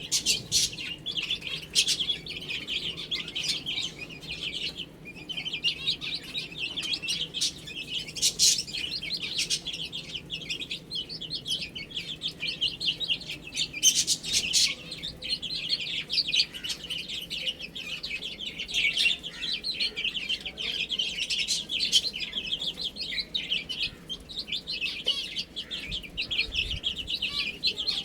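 A group of baby chicks peeping continuously, many short high-pitched chirps overlapping, with a few louder moments.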